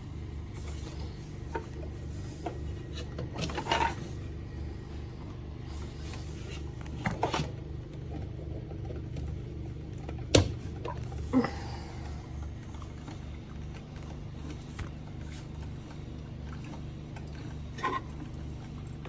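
Steady low mechanical hum with a fast, even pulse, with a few sharp clicks and knocks scattered through it.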